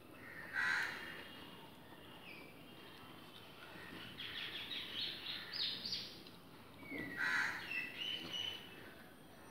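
A crow cawing, one harsh call about half a second in and another about seven seconds in, with a run of higher, stepped chirping notes between them from about four to six seconds.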